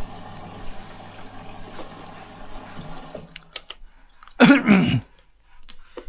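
Indesit washing machine taking in water through its inlet valve: a steady rush of water with a low hum, which stops about three seconds in. A short burst of voice follows about a second and a half later.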